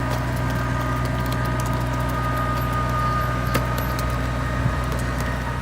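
An engine running steadily at a constant speed, with scattered light clicks and a sharper knock about three and a half seconds in.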